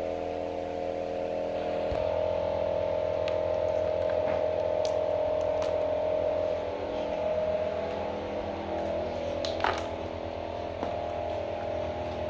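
Cosmos 16-inch wall fan running: a steady electric-motor hum made of several held tones, with a few light clicks over it and a sharper click near ten seconds in.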